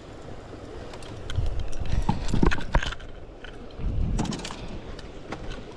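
Irregular knocks, clatter and low thumps from handling fishing tackle on a small boat, with a loud cluster of thumps about two seconds in and another about four seconds in.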